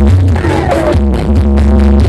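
Loud electronic dance music with a heavy, pulsing bass, blasting from a large carnival sound system.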